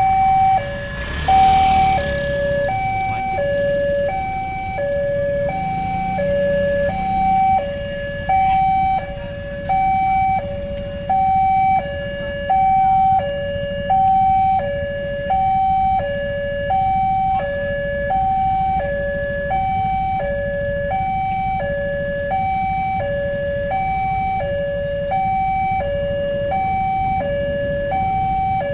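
Two-tone hi-lo warning siren sounding steadily, switching between a high and a low tone about twice a second, over a low rumble.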